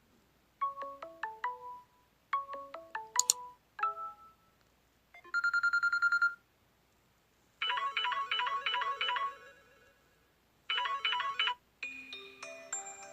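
Phone ringtone previews playing one after another as different ringtones are selected in a list. A short rising run of notes plays twice and starts a third time before it is cut off. Then comes about a second of a fast-pulsing beep, then a repeating chime pattern heard twice, and another melody near the end.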